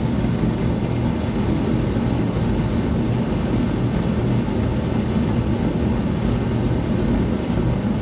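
Propane gas burner firing an open flame, a steady loud rush with most of its energy low. It is fed at higher pressure through a new regulator, which gives a bigger and way noisier flame.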